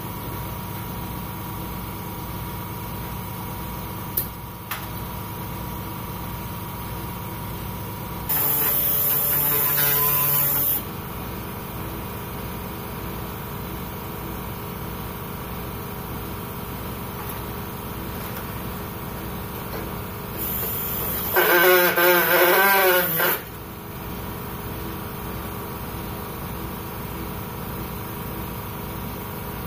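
Harbor Freight pneumatic body saw run in two short bursts of two to three seconds each, with a hiss of compressed air and a note that wavers in the second burst, over a steady mechanical hum. The saw is not cutting well, and the owner labels it junk.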